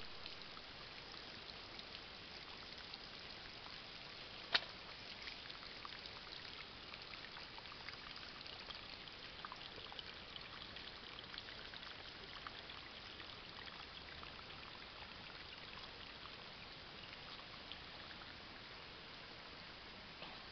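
Small woodland creek faintly trickling into a little dam pool, a steady wash of running water with tiny drips. A single sharp click about four and a half seconds in.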